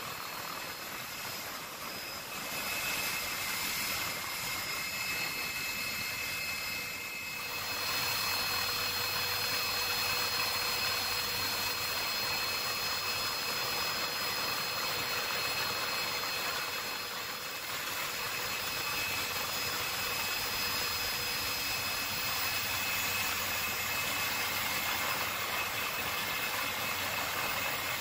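Helicopter noise heard from inside the cabin: a steady rush with a constant high turbine whine running under it. The sound dips briefly and shifts slightly about seven seconds in.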